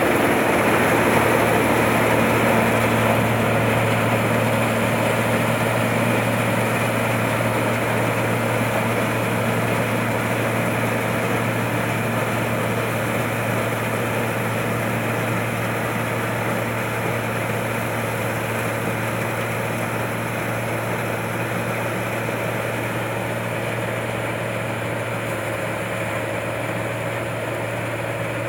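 Combine harvester's engine running steadily with a constant low hum, slowly growing quieter.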